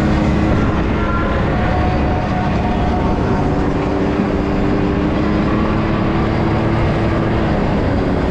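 ATV engine running steadily while riding, its drone holding a fairly even pitch with slight rises and falls.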